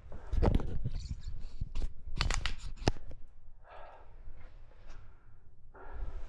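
A quick run of knocks, clicks and scrapes from someone moving and handling things over debris, followed by a breathy exhale about four seconds in.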